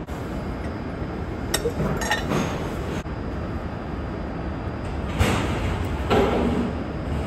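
Small metal hydrant parts being handled, giving a few light clinks and knocks. A steady low hum runs underneath.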